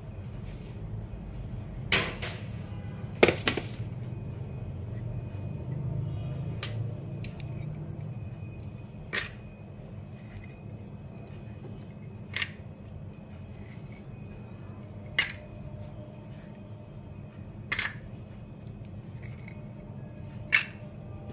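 Steamed rice-flour cupcakes in paper cups being set down one at a time on a metal wire cooling rack: a sharp tap every few seconds, seven in all, over a low steady hum.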